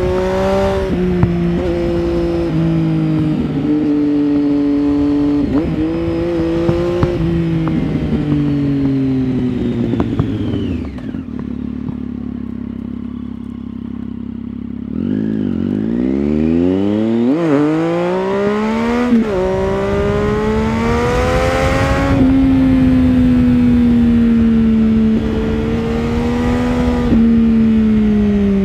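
Triumph Street Triple 675's inline three-cylinder engine through an Arrow 3-2 exhaust with dB-killer, heard from the rider's seat while riding. The engine note sinks as the bike slows and runs low and quieter for a few seconds about halfway through. It then climbs steeply with two quick drops at upshifts and settles to a steady cruising note.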